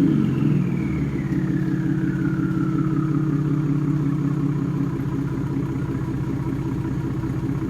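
2017 Ford Raptor's 3.5-litre twin-turbo EcoBoost V6 idling through a Corsa cat-back exhaust, just after a rev. The turbo whistle falls steadily in pitch over the first three or four seconds as the turbochargers spin down, over a steady, even idle.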